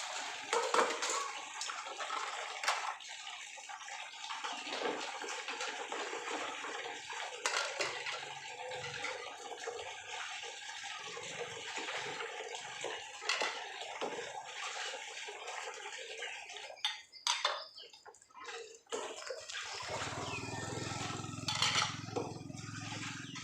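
Tap water running into a sink while dishes are washed by hand, with scattered clinks of crockery and utensils knocking together. A low hum comes in near the end.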